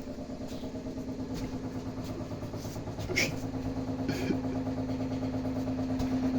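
Water pipes and a gas water heater humming: a steady droning tone that slowly grows louder and strengthens about three seconds in.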